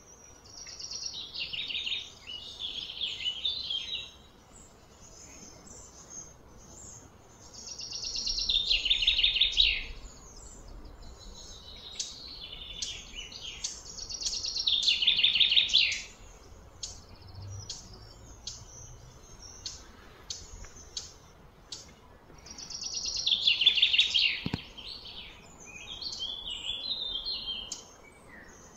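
A bird singing outdoors: a loud, fast-trilled phrase that falls in pitch, given four times at intervals of several seconds, with short chirps in between over a faint steady background.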